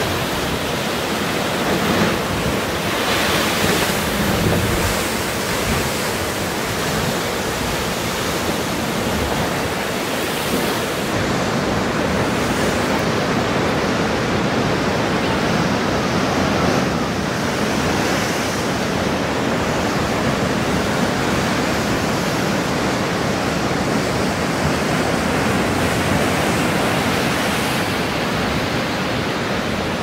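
Ocean surf surging and foaming over a rocky shoreline, a loud, steady rush of churning water.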